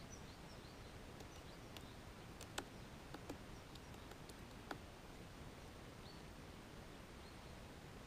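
Great spotted woodpecker hammering a pine cone wedged in its anvil on a pine trunk: a few sharp, separate knocks in the middle of the stretch, with faint high chirps over a quiet background hiss.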